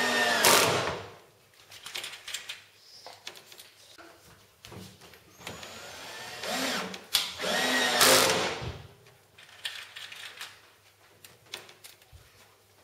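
Bosch cordless drill drilling into a wooden formwork panel through the holes of a metal hinge, run in two short bursts, about a second at the start and about two seconds past the middle, its motor pitch rising as the trigger is squeezed and falling as it is let off. Light clicks and handling knocks between the bursts.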